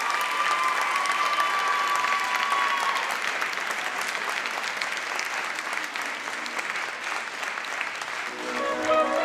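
Theatre audience applauding a dancer's bow. A steady high tone sounds through the clapping for the first three seconds, and orchestral music begins near the end.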